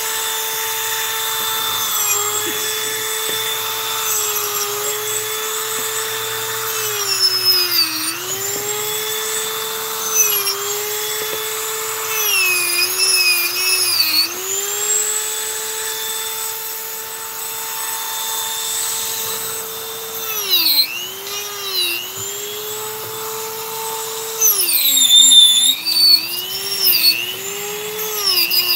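Dremel rotary tool running at high speed with a steady whine, its pitch sagging briefly each time the bit bites into the wood as it carves. The dips come in quick clusters, with louder grinding, near the end.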